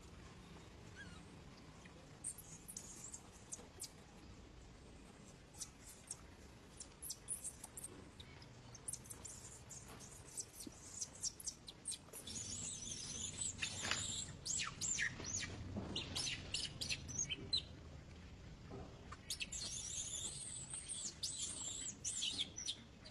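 Short, high-pitched chirping calls, scattered at first, then coming thick and fast in two runs in the second half.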